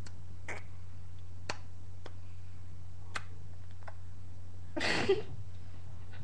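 Low steady electrical hum with a few faint scattered clicks, then about five seconds in a short burst of a girl's stifled laughter.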